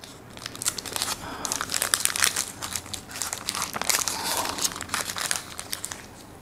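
Wrapper of a Subway snack wrap crinkling and crumpling as it is unwrapped by hand, in quick irregular crackles.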